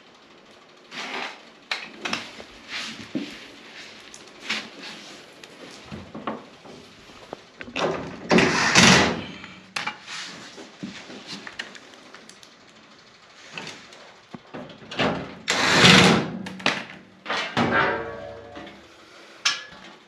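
Knocks, clicks and clatter of work on a dryer's sheet-metal door and front, with two louder rasping bursts of about a second and a half each, one near the middle and one about three-quarters through.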